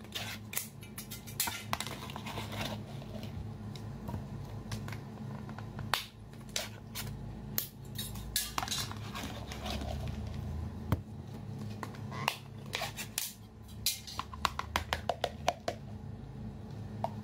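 Clear plastic food jar being opened and handled, with sharp clicks and knocks of plastic and a quick run of ticks near the end as sticky sauced crayfish tails are tipped out onto a plate, over background music.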